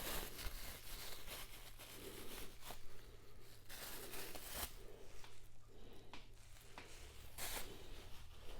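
Close-up eating sounds: chewing and mouth noises while eating fufu with okra vegetable soup, heard as a string of irregular soft clicks and rustles.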